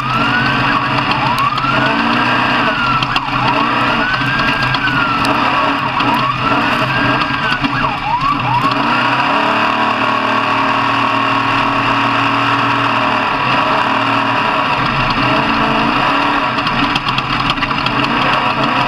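A siren wailing, its pitch sweeping up and down about every two and a half seconds, stops about nine seconds in. Steady engine noise runs underneath throughout.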